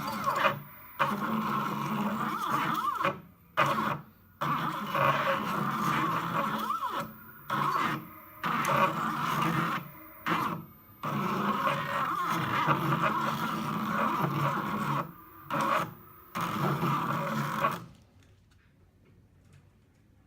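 NEMA stepper motors turning an Etch a Sketch's knobs under G-code control, running with a steady mechanical hum in stretches of one to several seconds with short stops between moves. They stop about 18 seconds in.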